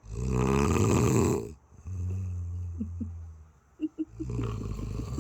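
Snoring: a loud, rough snore lasting about a second and a half, then a lower, steadier pitched breath, and a second rough snore starting a little past four seconds in.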